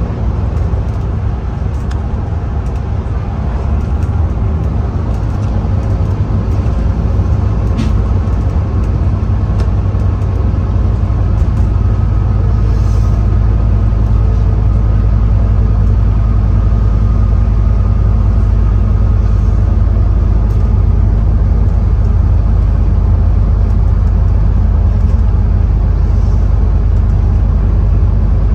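Scania N230UD OmniCity bus's diesel engine and drivetrain running steadily on the move, heard from inside the bus as a deep drone with road noise. It gets a little louder over the first few seconds, and a faint whine comes in about a third of the way through.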